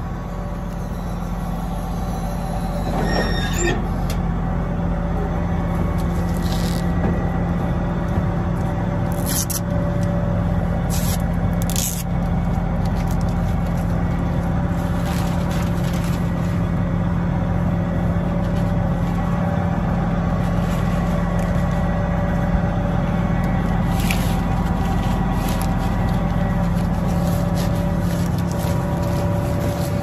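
A John Deere CP690 cotton picker running steadily, a low hum with a few higher tones held over it. A few short scrapes cut in, about three seconds in, around ten to twelve seconds, and again near twenty-four seconds.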